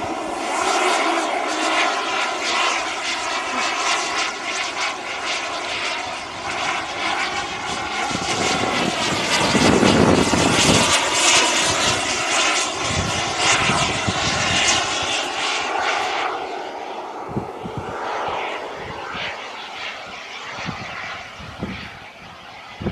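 Model jet turbine of a radio-controlled Eurofighter Typhoon in flight: a steady turbine whine over a rushing hiss. It swells to its loudest as the jet passes about ten seconds in, then turns duller and fades as it flies away.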